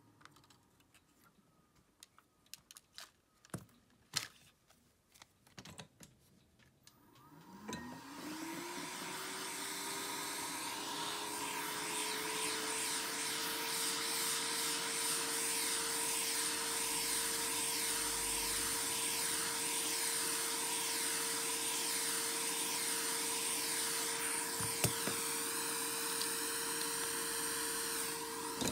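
A few light clicks of handling, then a small electric motor spins up with a rising whine about seven seconds in and runs steadily at a constant pitch under a strong rushing hiss of air, until it stops near the end.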